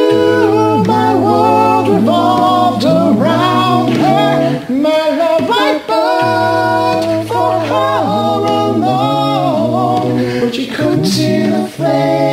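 Multi-tracked a cappella singing: one man's voice layered into several harmony parts, with a low bass note held under moving upper voices and no instruments.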